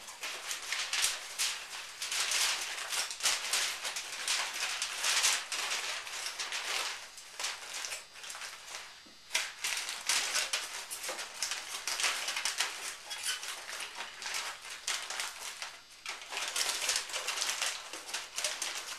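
Aluminum foil crinkling and crackling as it is folded and crimped by hand over a roasting pan. Brief lulls come about nine and sixteen seconds in.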